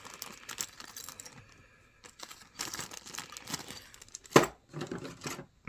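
Plastic crinkling and rustling in fits as small model-kit parts are handled, with one sharp knock about four seconds in.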